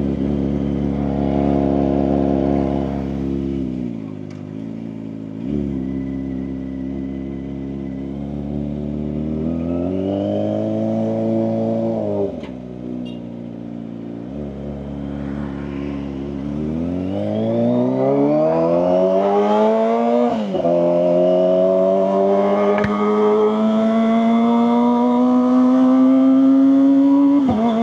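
Kawasaki ZX-25RR's 250 cc inline-four engine running through a Leovince GP Corsa aftermarket exhaust while riding, the pitch climbing under acceleration and dropping sharply at each gear change or roll-off. It pulls through the gears in long climbs over the second half.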